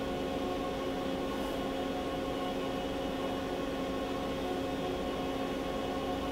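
Makino MC86 horizontal machining center running steadily, a constant mechanical hum and whine made of several steady tones over a noisy background.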